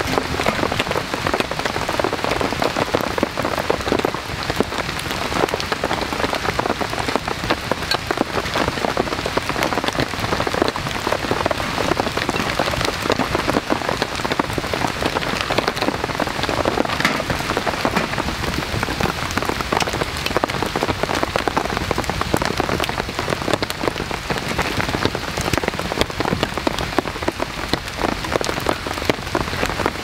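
Heavy rain falling steadily: a dense, even hiss of countless small drop impacts that holds unchanged throughout.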